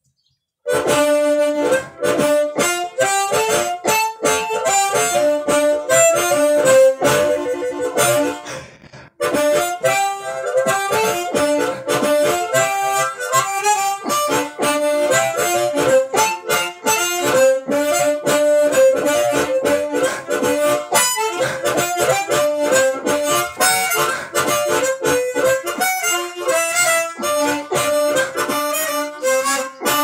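Harmonica played through a silicon Fuzz Face-style fuzz pedal into a small amp, a heavily saturated, compressed, lo-fi tone. It plays a run of quick short notes, with a brief break about nine seconds in.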